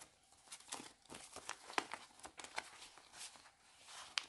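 Faint crinkling and rustling of Canadian polymer banknotes and cash envelopes being handled, with many small sharp crackles and a crisper click near the end.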